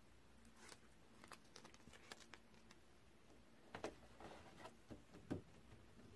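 Faint rustling and light taps of cut colored paper being handled and pressed flat onto a sheet of paper on a tabletop, with a few slightly louder taps in the second half.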